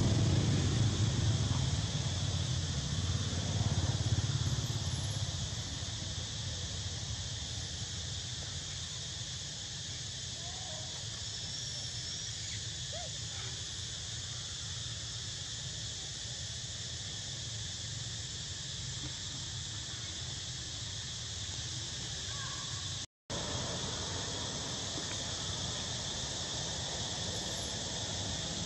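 Steady insect chorus, a high even buzz, with a low rumble that is louder for the first few seconds and then fades back; a brief dropout in the sound late on.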